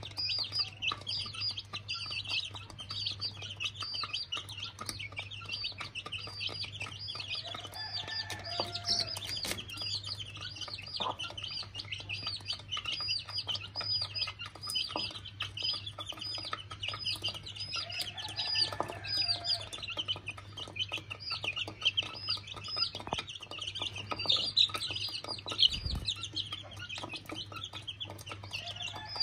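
Chicks peeping nonstop in quick high chirps as they feed, with a hen's low clucks a couple of times and beaks tapping on the feed dish.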